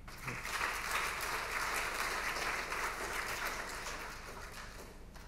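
Audience applauding, swelling within the first second and slowly dying away over the last couple of seconds.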